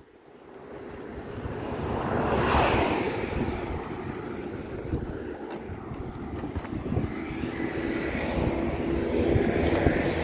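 Cars driving past on the road: one passes with a swelling rush that peaks about two and a half seconds in, and another approaches near the end with a low engine hum.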